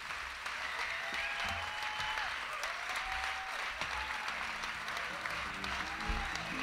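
Audience applauding, with a few voices cheering over it.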